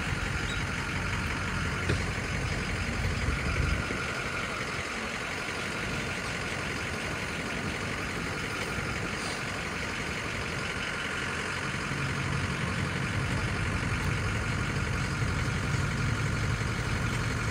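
An engine idling steadily. Its low rumble drops away about four seconds in and comes back about eight seconds later.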